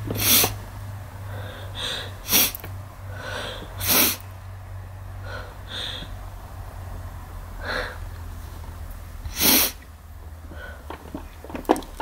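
A woman's muffled, stifled sneezes: four short sharp ones, the loudest about three quarters of the way through, with quick breaths drawn in between them.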